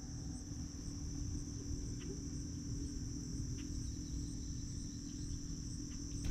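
Insects trilling steadily in one unbroken high-pitched drone, over a low rumble, with a couple of faint clicks.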